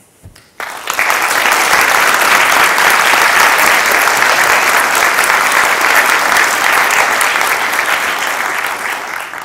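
Audience applauding: the clapping starts just under a second in, holds steady, and dies away near the end.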